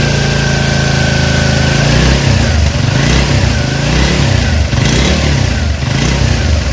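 Freshly rebuilt 70 cc single-cylinder motorcycle engine (Chinese CD70 copy) idling with its top tappet cover off; its pitch wavers up and down from about two seconds in. It has a light tick-tick, which the mechanic puts down to slightly loose tappets.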